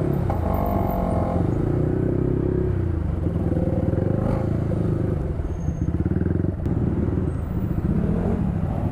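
Motorcycle engine running on the move, its pitch shifting a little with the throttle in the first couple of seconds, then running steadily.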